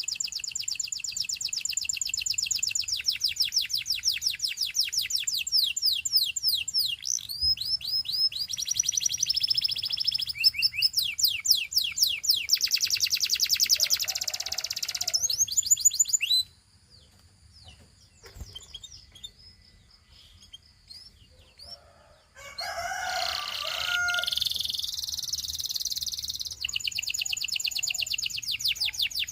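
Gloster canary singing: long runs of fast, repeated trill notes. About halfway through the song drops away for several seconds, leaving only a faint held whistle. Then comes a burst of varied song with some lower notes, and near the end the rapid trills resume.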